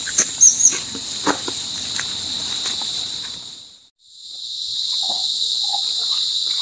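Steady high-pitched insect chirring in the outdoor background, with scattered light clicks and rustles from plant stems and leaves being handled in the first half. The whole soundtrack fades out briefly about four seconds in and fades back to the same insect chirring.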